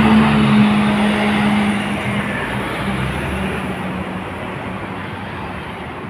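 Double-decker bus engine running close by: a steady low hum over road noise, gradually fading.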